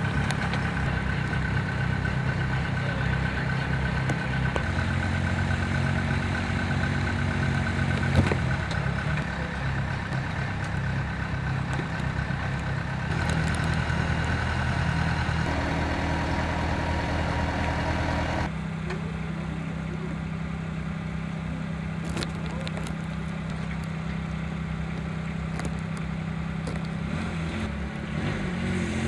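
Engine of a Teupen LEO 25 tracked aerial work platform running steadily. Its hum changes abruptly several times, and there is one sharp knock about eight seconds in.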